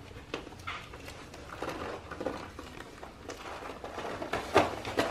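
Duct tape wrapped around a body crinkling and crackling in irregular rustles and clicks as the wearer twists and strains against it, with a sharper crack about four and a half seconds in.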